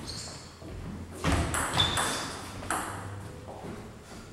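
Table tennis ball clicking sharply off the bats and table during a rally, several quick ringing pings in the first three seconds, then fading.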